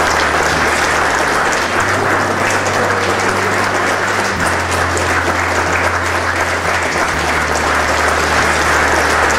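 Congregation applauding steadily for the newly married couple.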